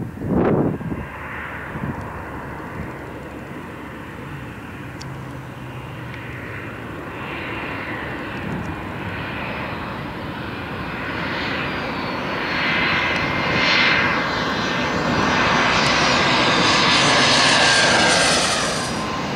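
Jet airliner engines on a runway: a short loud burst about half a second in as a twinjet touches down, then the turbofans of an Airbus narrowbody growing steadily louder and higher over the second half as it powers along the runway.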